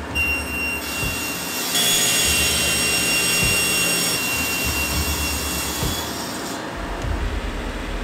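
Sliding table panel saw running with a steady high blade whine, then cutting through a laminated panel from about two seconds in, louder and harsher until about six and a half seconds, after which the blade runs free again.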